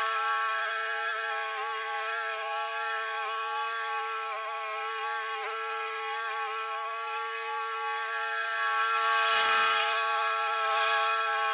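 Walk-behind lawn mower engine running steadily under load while mowing overgrown tall grass, a constant buzzing drone. A short rush of noise breaks in about nine and a half seconds in.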